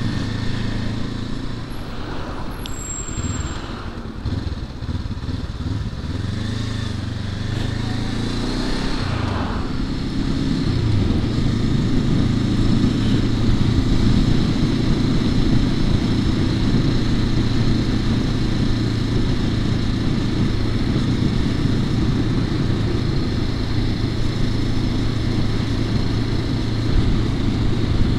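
Honda CL500's parallel-twin engine running while the bike is ridden. Its revs rise and fall for about the first ten seconds, then it holds a steadier, slightly louder note.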